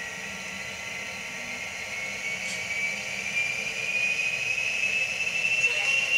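HO-scale model diesel locomotive with a digital sound decoder pulling away: a steady engine-and-motor whine that rises in pitch and grows louder as it speeds up.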